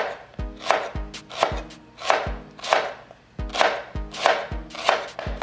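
Chef's knife slicing a shallot on a plastic cutting board, quick cuts about two to three a second. Background music with a deep, steady beat plays underneath.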